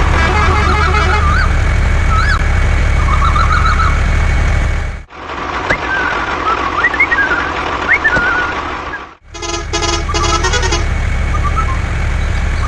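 Spliced clips of a machine engine's steady low rumble with birds chirping over it. About five seconds in it cuts to a steady hiss with more chirping. Near nine seconds it cuts back to the rumble with a quick run of horn-like beeps.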